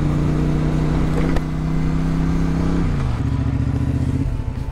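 Triumph America motorcycle's parallel-twin engine running steadily under way, then dropping in pitch about three seconds in as it slows and settles to a lower, even note.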